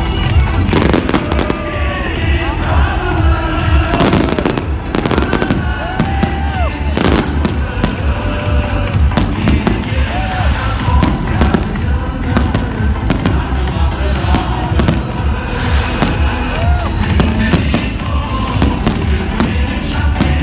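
Fireworks display going off: many sharp bangs and crackles in quick, irregular succession.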